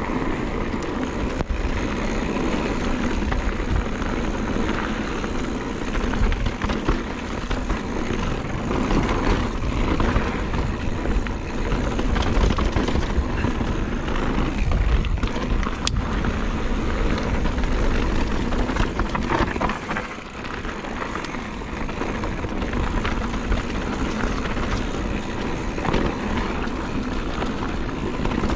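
Mountain bike riding down a dirt trail: continuous rushing wind on the microphone over the rolling and rattling of the bike, with scattered clicks and knocks, easing briefly about twenty seconds in.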